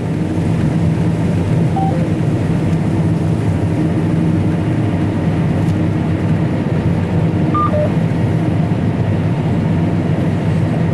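Combine harvesting soybeans, heard from inside the cab: a steady, loud engine and machinery hum, with a few short electronic beeps about two seconds in and again near eight seconds.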